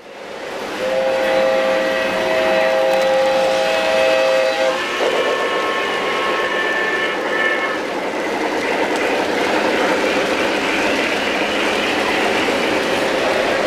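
O-gauge model trains rattling over three-rail track with a steady clatter of wheels. Over it the locomotives' sound systems give two sustained multi-note signals: one for about four seconds, then a higher-pitched one for about three seconds.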